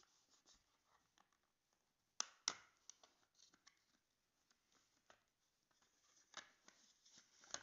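Plastic shell of a power bank being prised apart by hand: faint handling with scattered sharp plastic clicks, the two loudest close together about two seconds in.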